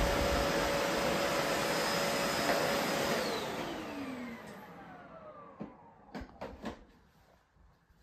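Bosch BGS21X320 bagless canister vacuum cleaner running steadily, then switched off about three seconds in, its whine falling in pitch as the motor spins down. A few light knocks follow near the end.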